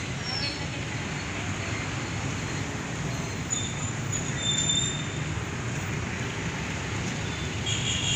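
Steady roadside traffic noise, a low rumble of passing vehicles, with a few faint thin high squeals about four seconds in; it cuts off suddenly at the end.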